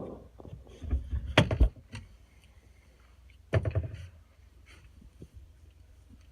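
Two clusters of knocks and thumps: several about a second in, with a low rumble under them, and a shorter group at about three and a half seconds.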